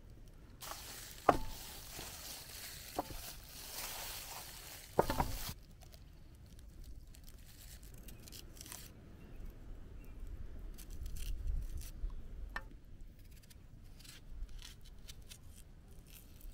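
A basting brush scraping over marinated chickens on a metal tray, with three sharp knocks against the tray. Then dry onion skin crackling and tearing in small ticks as an onion is peeled.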